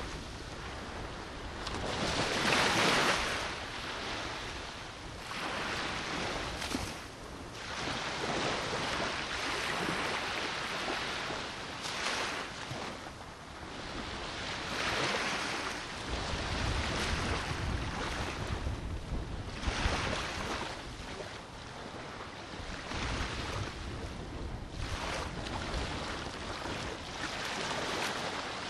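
Sea waves washing onto the shore, rising and falling every few seconds, with strong wind gusting across the microphone and rumbling for a few seconds past the middle.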